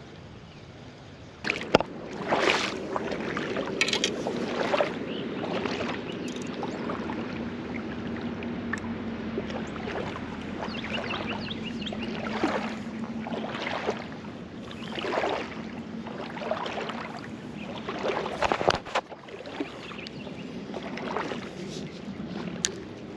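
Footsteps swishing through wet grass along a pond bank, about one step a second.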